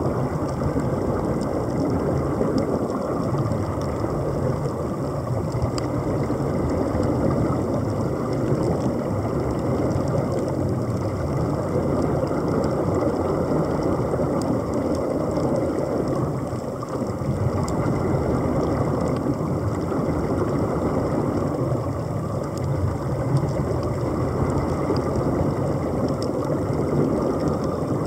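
Underwater noise: a steady low machine rumble carried through the water, with the hiss of air bubbling out of surface-supplied diving helmets.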